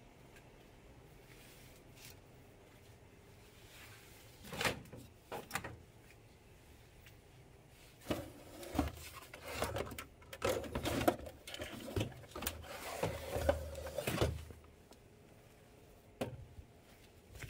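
Handling noises as an old plastic cassette player is slid off a metal storage shelf and lifted out: scattered knocks at first, then a busy run of clunks, bumps and scraping in the middle, and one last knock near the end.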